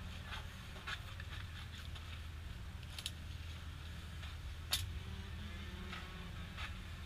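Steady low outdoor rumble, with a few light clicks and one sharper click a little under five seconds in.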